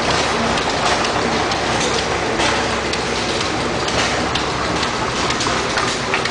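Engines running: a steady mechanical clatter with a steady hum underneath and irregular louder knocks.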